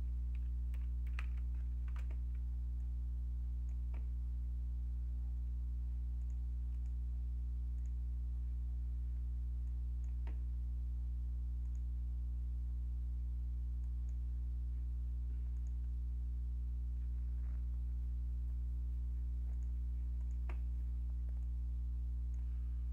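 Steady low electrical hum, with a few faint, scattered clicks from a computer keyboard and mouse.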